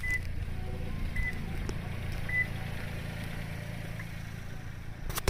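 A steady low mechanical hum, with three short high beeps about a second apart early on, and a sharp knock near the end.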